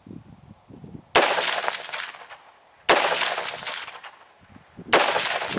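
Three single shots from a 5.56 mm AR-15 fitted with a muzzle compensator, fired about two seconds apart, each sharp crack followed by an echo that fades over a second or more.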